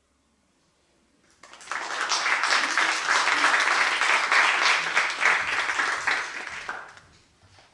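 Audience applauding: the clapping starts about a second and a half in, swells quickly, holds, then dies away near the end.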